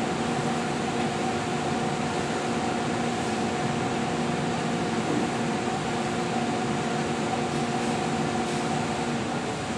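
Steady hum of factory machinery and ventilation: an even rushing noise with several constant tones, unchanging.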